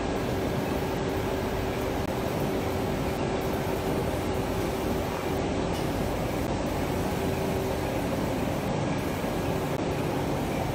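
Chamomile processing line running: conveyor belts, electric motors and a sorting machine give a steady mechanical hum with a faint held whine.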